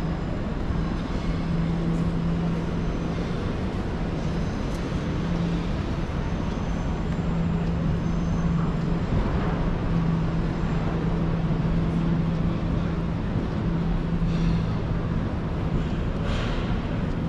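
Steady city traffic noise with a low engine hum running through it.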